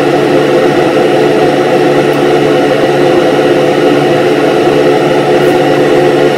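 Handheld hair dryer running steadily with an even, loud whir.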